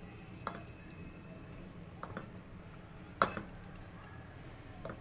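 Chopped carrot sliding off a ceramic dish into a steel pot of milk: soft wet squishing and pattering, with a few light knocks, the sharpest about three seconds in.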